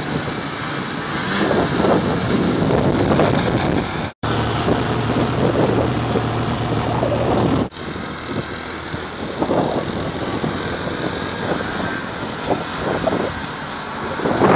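Ski-Doo snowmobile engines running as the machines ride across snow, heard from the side. The sound cuts abruptly about four and eight seconds in, where short clips are joined.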